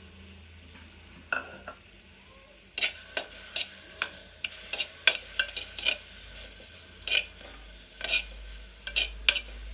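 A spoon stirring and scraping against a clay pot as powdered lesser galangal (chitharathai) is dry-roasted. Quick, irregular scrapes and knocks start about three seconds in, after a single click.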